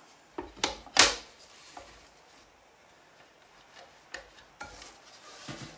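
Plastic Griffin Grip on a potter's wheel head being handled: three sharp clacks within the first second or so, the last the loudest, then lighter clicks and rubbing as the grip's sliding pieces are worked by hand. The grip is sticking and will not tighten down.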